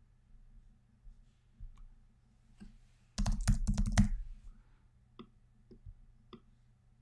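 Computer keyboard typing: a quick run of keystrokes about three seconds in, followed by a few single clicks.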